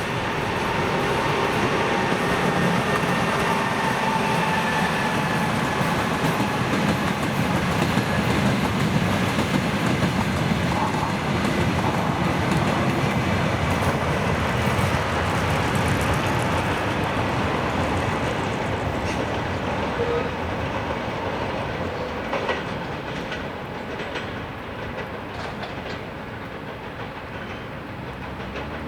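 Passenger train hauled by an EP20 electric locomotive passing at speed, its wheels clattering over the rails in a loud, steady rush. The noise dies away over the last several seconds as the train moves off.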